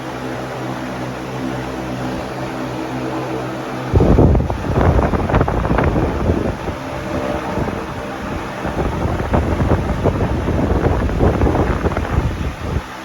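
Arge Max 60 cm 200 W wall fan running with a steady motor hum; about four seconds in, its airflow starts blowing onto the microphone, giving a loud buffeting wind rush that covers the hum until it drops away just before the end.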